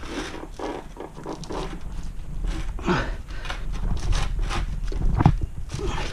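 Rubber tire of a Onewheel Pint being pried off its wheel hub with plastic tire levers: irregular scraping, creaking and knocks of rubber and plastic against the rim, with two sharper snaps about three and five seconds in.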